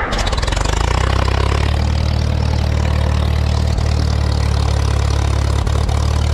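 Tractor engine catching right at the start, then idling steadily with an even, unchanging beat.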